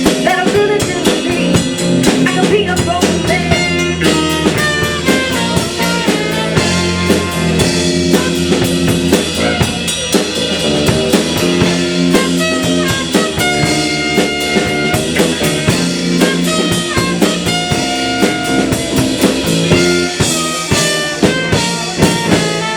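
Live rock band playing an instrumental passage: electric guitar lines over bass and drum kit. A quick run of sharp drum hits comes near the end.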